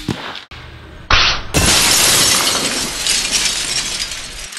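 A frozen water balloon blown apart by a slug from a .457 big-bore air rifle: a loud crash about a second in, then a long shattering, spraying noise that fades over about three seconds. The tail of the rifle's shot is at the very start.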